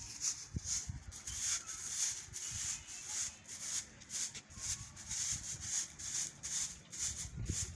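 Hand broom sweeping in quick, steady, repeated strokes, each a short dry swish.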